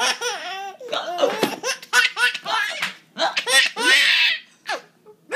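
A nine-month-old baby laughing in a string of short bursts, with a longer breathy laugh about four seconds in.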